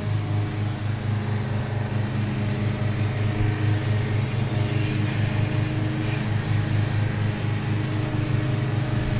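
A steady low mechanical hum with a slight regular throb, as of a motor or engine running.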